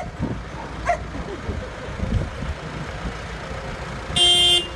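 Tractor engine running with a low rumble, and its horn beeped once for about half a second near the end.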